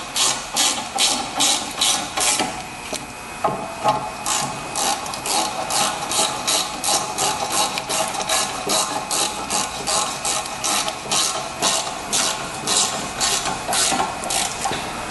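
Hand ratchet clicking as it tightens the brake caliper bracket bolts: an even run of sharp clicks, about two or three a second, with a short pause about three seconds in.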